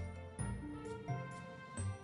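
Background music: a light tune over repeated bass notes, with short high notes on top.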